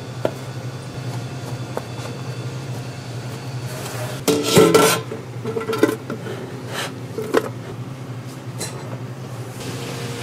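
Metal kitchenware clinking and knocking: scattered light knocks, with a louder burst of ringing metallic clatter about four seconds in, over a steady low hum.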